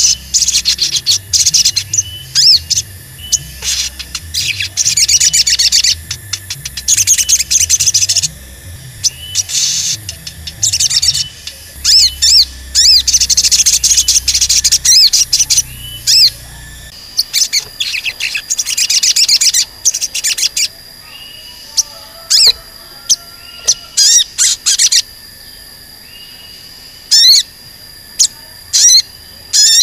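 A caged sunbird singing rapid, sharp, high-pitched chirps. They come in dense runs through the first half, over a low rumble, then as sparser single chirps with short gaps in the second half.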